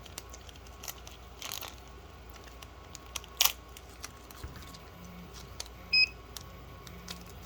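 Handling noise from a spare cooling fan being wrapped up and tucked into a DVR's case: scattered light clicks and rustles, with one sharp click about three and a half seconds in. A short, loud, high beep-like tone sounds about six seconds in, over a faint steady low hum.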